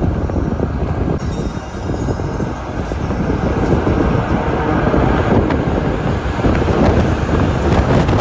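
Bus engine and tyre noise, a steady rumble heard from inside the bus, growing louder as the bus drives into a road tunnel.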